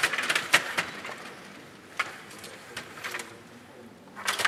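Sharp plastic clicks and knocks of a Stiga table hockey game in play: rods, plastic players and puck striking. Several come in the first second, single ones about two and three seconds in, and a quick cluster near the end.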